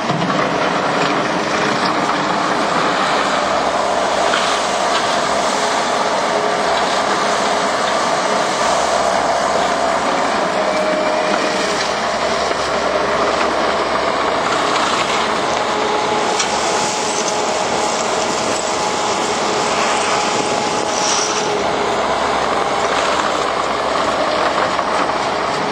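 Takeuchi TL150 compact track loader's diesel engine running steadily and loudly while the machine works, with no pauses.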